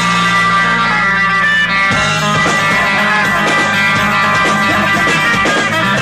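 Live rock band playing loud: a held, ringing guitar chord, then busier playing with rapid percussive hits from about two seconds in.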